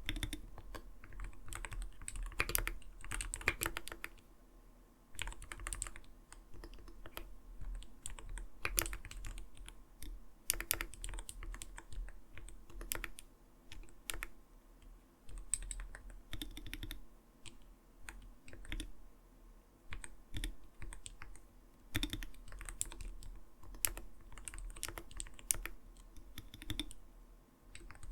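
Typing on an Arbiter Studio Polar 65 mechanical gaming keyboard: a dense, irregular run of soft, muted keystroke clacks (kotokoto) in bursts, with short pauses between runs.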